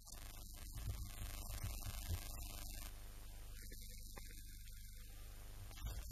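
Steady low hum with an even hiss above it.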